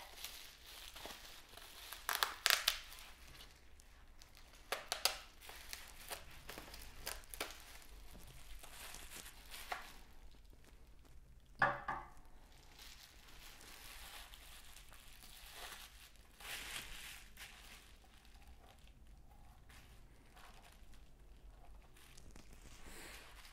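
Plastic bubble wrap crinkling and rustling as it is pulled open and peeled off a small watch box, with a few louder crackles.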